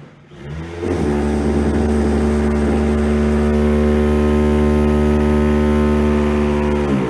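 Handheld electric power tool's motor spinning up just under a second in, running steadily at full speed with an even whine, then winding down and stopping near the end.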